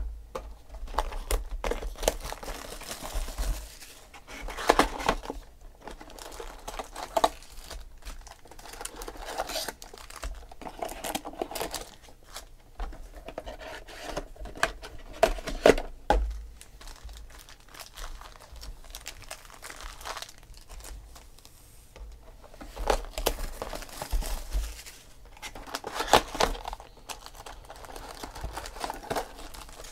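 Trading card packs and cardboard hobby boxes being handled: irregular crinkling of the packs' wrappers and tearing of box packaging, with several louder crackles and knocks as packs are pulled out and set down.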